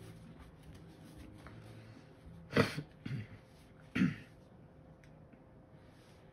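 A person clearing their throat and coughing: two loud coughs about a second and a half apart, with a smaller one just after the first.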